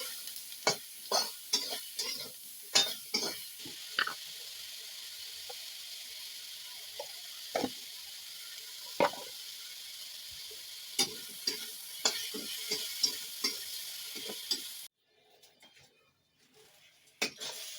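Sponge gourd sizzling in oil in a karai, with a spatula stirring and knocking against the pan, in clusters of quick strikes. The sizzle cuts off suddenly near the end, leaving a few faint knocks.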